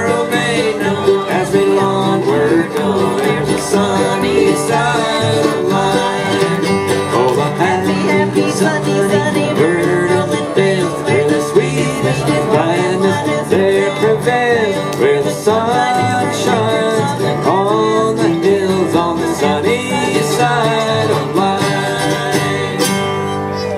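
Acoustic string trio of mandolin, acoustic guitar and upright bass playing an instrumental break of an old-time country song, easing off near the end.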